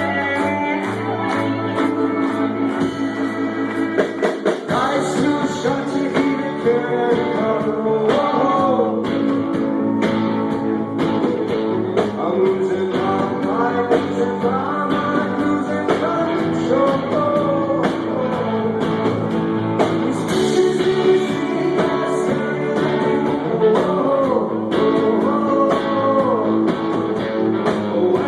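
Rock band playing live: held bass notes at first, then about five seconds in a singer comes in over guitar and a steady drum beat.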